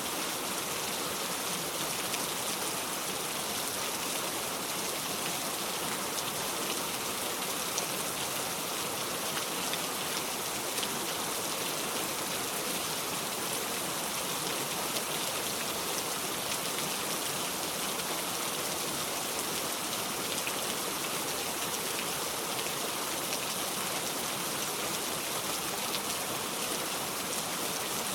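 Steady rain falling, an even patter with faint scattered drop ticks.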